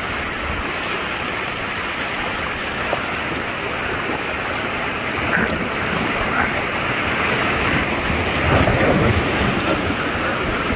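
River rapids rushing around a whitewater raft: a steady churning water noise that swells louder near the end as the raft runs into the whitewater.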